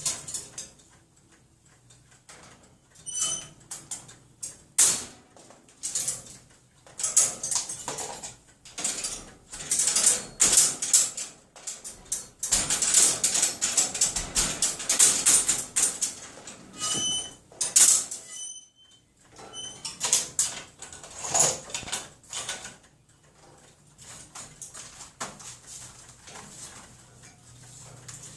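Wire pet-cage doors being banged and rattled over and over by a pet playing on the cage: irregular metallic clanks and clatters, thickest in a run of rapid rattling about halfway through, with a few short high chirps in between.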